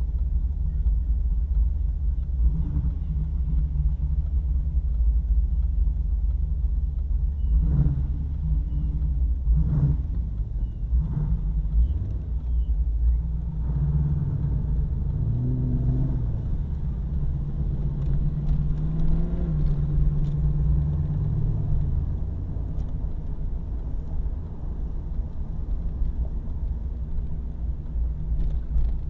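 Car engine running with a deep, steady rumble, its revs rising and falling a few times in the middle.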